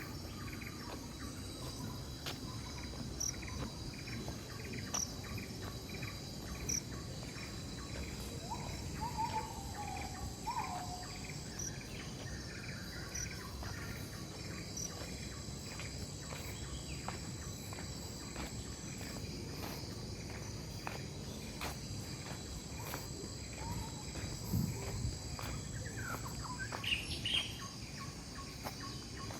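Countryside ambience of insects droning steadily at a high pitch, with a chirp repeating about twice a second through the first half. A few bird calls break in, two short gliding calls about nine to ten seconds in and a few more near the end.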